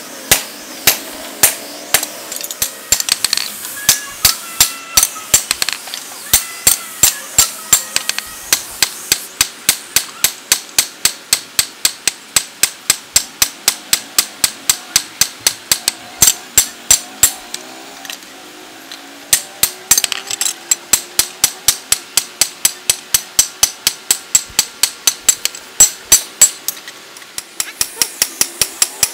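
Hand hammer striking a leaf-spring steel cleaver blade on a steel anvil block: a long run of sharp metal-on-metal blows, about two a second at first, then quicker at about four a second, with a brief pause about two-thirds of the way through.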